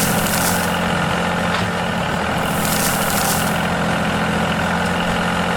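A steady engine-like drone of a miniature construction vehicle running, with two short hisses: one at the very start and one about three seconds in.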